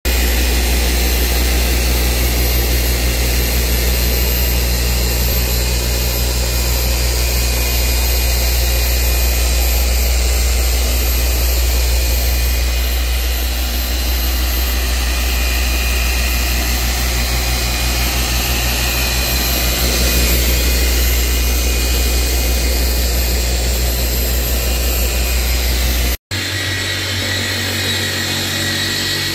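Hercules forced-rotation dual-action polisher running steadily, its motor giving a constant hum and whine as the spinning foam pad buffs a boat hull. Near the end the sound drops out for an instant and comes back a little quieter.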